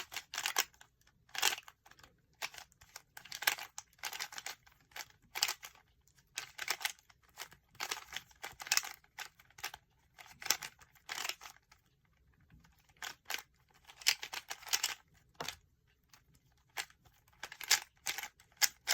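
Rubik's Cube being turned by hand: the plastic layers click and clack in quick runs of turns, with short pauses between runs.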